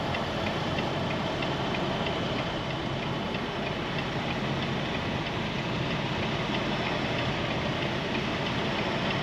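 Semi truck's diesel engine running slowly while the truck backs into a parking spot, a steady low noise with faint regular ticking over it.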